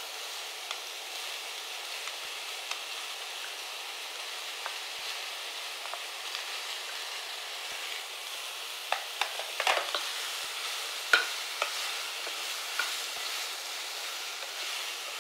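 Button mushrooms and freshly added chopped onions sizzling in oil in a nonstick frying pan. About nine to twelve seconds in, a spatula knocks and scrapes against the pan several times as the onions are stirred in.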